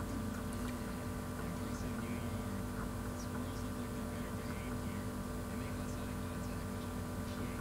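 Steady electrical mains hum: a constant low buzz made of several fixed tones, unchanging throughout.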